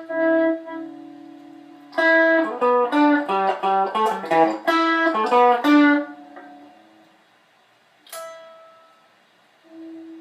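A Strat-style electric guitar, a Rogue Rocketeer, played alone: a note rings on, then a quick run of single notes lasts about four seconds, and two more single notes are picked and left to ring near the end.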